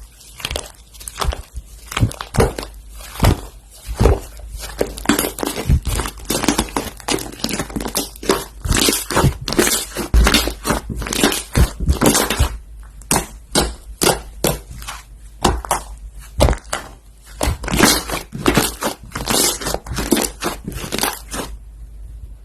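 Crunchy slime being pressed and squeezed by hand, giving dense, irregular crackling and popping, with a short lull near the end.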